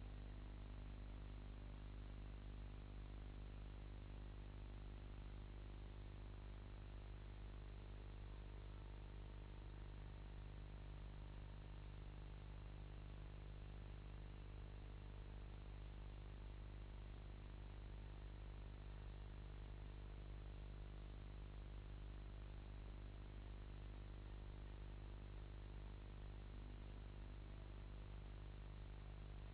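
Steady low electrical hum and hiss with two faint high whines, unchanging throughout and with no other sound.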